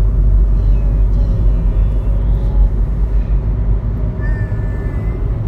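Steady low rumble of road and engine noise heard from inside a moving car. A brief faint high-pitched tone comes about four seconds in.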